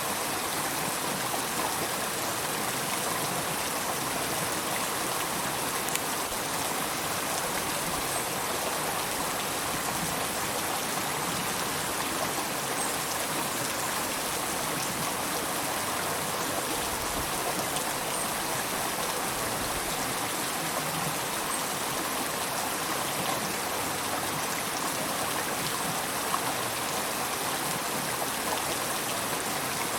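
River water flowing and babbling over stones, a steady even rush.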